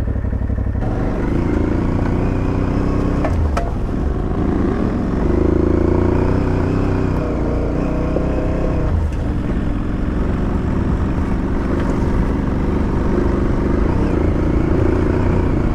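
2022 Aprilia Tuareg 660's parallel-twin engine running under way on a dirt track, its pitch rising and falling with the throttle. A couple of sharp knocks come about three and a half seconds in.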